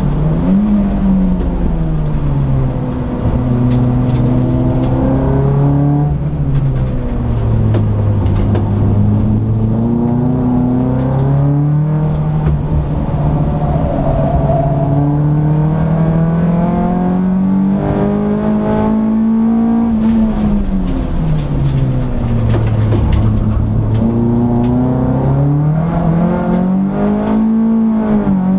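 A Peugeot 206 S16's 2.0-litre four-cylinder engine heard from inside the cabin while lapping a track. Its note climbs slowly under load for long stretches, and drops sharply about six seconds in and again about twenty seconds in.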